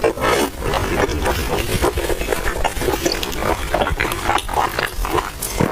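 A person chewing crispy oil-skin buns close to the microphone: a dense, loud run of short chewing and lip-smacking sounds with no pauses.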